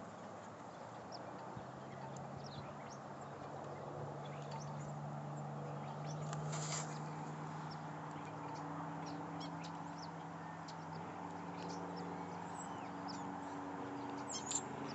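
Faint, steady low hum of a helicopter circling at a distance, dying away about two seconds before the end, with scattered short high chirps over it.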